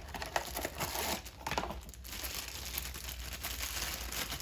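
Continuous crinkling and rustling with many small clicks, as of material handled close to the microphone while the speed sensor is fitted.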